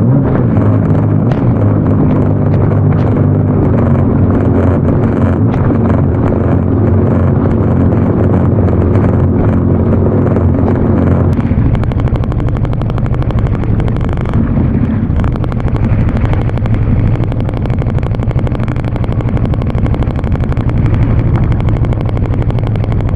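Jet ski engine running steadily at low speed. About halfway through its note changes and settles into a different steady hum.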